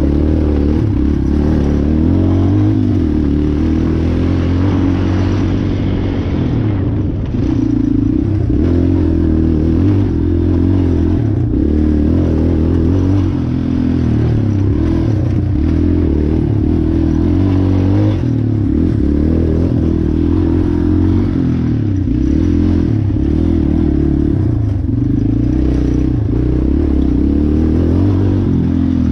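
Race ATV engine revving up and down again and again as it is ridden hard over a cross-country trail, with knocks and rattles from the machine over rough ground.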